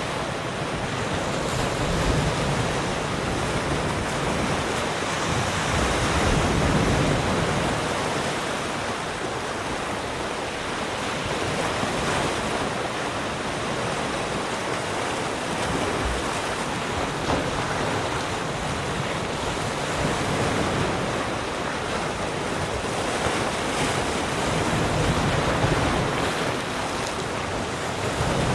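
Sea waves lapping and washing around a rock, a continuous wash that swells and eases every few seconds, with some wind on the microphone.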